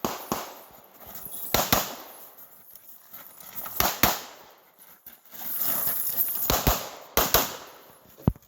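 Pistol gunshots, about nine sharp cracks at irregular intervals, several of them in quick pairs.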